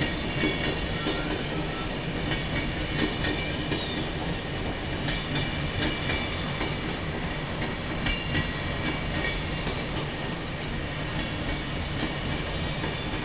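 SBB IC 2000 double-deck intercity coaches rolling slowly through the station, a steady rumble of wheels on rail with a few faint clicks and thin high tones over it.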